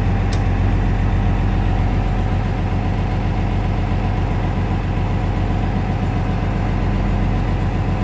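1988 Blue Bird International S1800 bus engine running steadily, still cold just after a cranky cold start. A dash toggle switch clicks once about a third of a second in.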